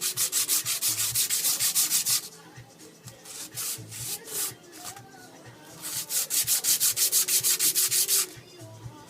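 Sandpaper rubbed quickly back and forth over the snipped dial-foot stubs on a small metal watch dial back plate, sanding them flush: two runs of rapid rasping strokes, about eight a second, with a slower, scattered patch between.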